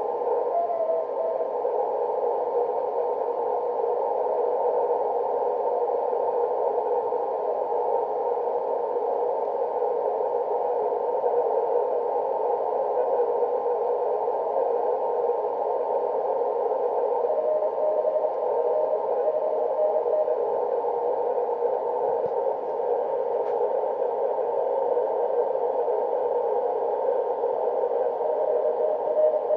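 Receiver hiss from an Elecraft K3 transceiver tuned to 28.038 MHz in the 10-metre band, heard through a narrow filter as a steady rushing noise. A weak Morse tone comes up faintly within the noise a few times.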